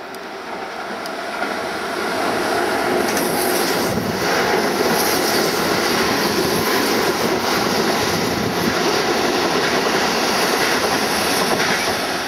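Electric commuter trains passing close by on adjacent tracks: a steady rumble of steel wheels on rail that swells over the first two seconds and then stays loud.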